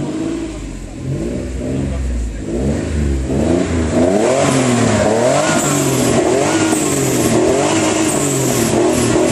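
Turbocharged 2.9-litre 24-valve Cosworth V6 in a Ford Sierra, fitted with a Holset HX40 turbo, free-revved with the car standing still. It runs low for the first few seconds, then from about three seconds in it is blipped repeatedly, the pitch rising and falling about once a second as the revs climb toward 6,000 rpm.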